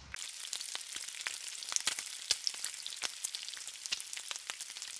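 Food frying on a hot flat-top griddle: a steady sizzle dotted with many sharp crackles and pops of spattering fat, starting suddenly at the outset.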